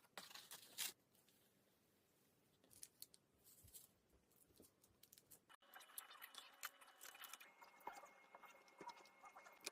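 Quiet, close-up crinkling, tearing and small clicks from handling a cup noodle and its packaging, in short separate bursts.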